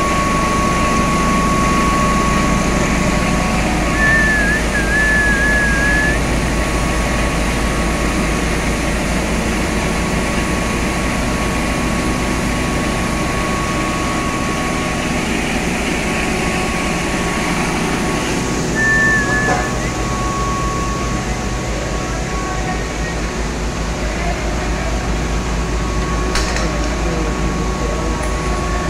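Fortified rice extrusion line running: a steady machine drone with a constant high whine. A short wavering higher whistle comes twice, about four seconds in and again about two-thirds through.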